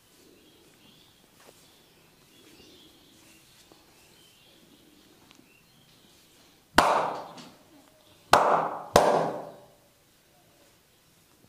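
Three loud, sharp hand slaps of a massage, struck on the body: one, then two more close together about a second and a half later, each dying away briefly.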